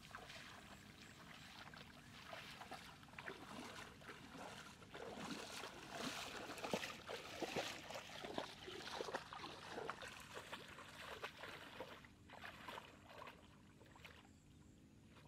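Shallow water splashing and sloshing as a person wades through a flooded field with a fish trap on floating PVC pipes; a run of small splashes, busiest in the middle and thinning toward the end.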